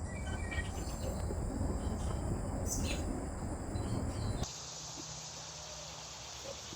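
Outdoor ambience with insects chirping over a low rumble. About four seconds in, the rumble cuts off abruptly, leaving a steady high insect hiss.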